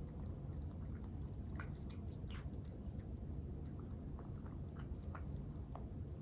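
Two Norwegian Forest Cats eating dry kibble from raised bowls: many small, irregular crunches and clicks of chewing over a steady low hum.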